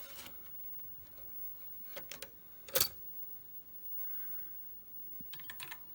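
A few sharp clicks and knocks: a pair about two seconds in and a louder one just before three seconds, as a 5.25-inch floppy disk is slid into the Commodore SX-64's built-in disk drive and the drive door is latched shut. A quick run of light clicks follows near the end.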